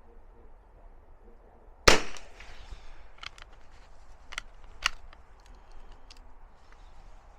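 A single shot from a J. Stevens Little Krag Model 65 .22 rifle firing CCI Standard Velocity .22 LR, about two seconds in, with a short echoing tail. Several sharp clicks follow over the next few seconds, the single-shot bolt action being worked to reload.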